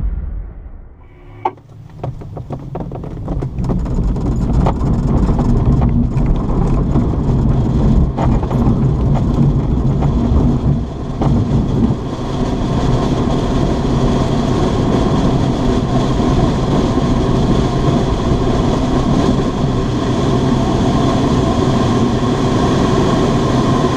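Grob Twin Astir glider's takeoff roll on a grass strip under aerotow, heard from inside the cockpit: the wheel rumbling and knocking over the grass and the airframe rattling, building over the first few seconds and then steady. Under it runs the drone of the tow plane's engine ahead.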